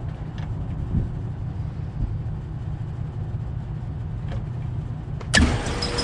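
Packaged rooftop HVAC unit running with a steady low rumble. About five seconds in it turns suddenly louder with a steady whine as the belt-driven indoor blower comes on after the fan terminal is jumped out; the blower has known belt and pulley problems.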